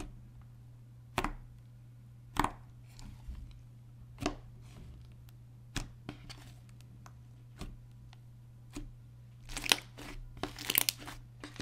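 Pink butter slime, glossy slime mixed with clay, being pressed and kneaded by hand, giving sharp wet clicks and pops every second or two and a quicker run of them near the end. A steady low hum runs underneath.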